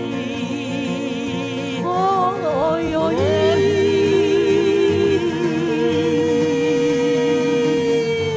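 A woman singing a slow song with vibrato over instrumental accompaniment: quick ornamented turns about two seconds in, then a long held note near the end.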